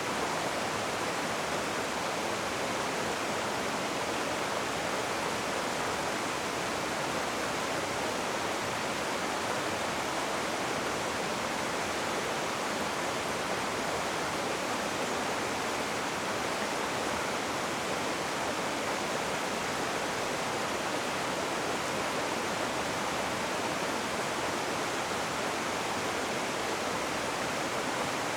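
Rushing river water: a steady, even rush of flowing water with no breaks or separate splashes.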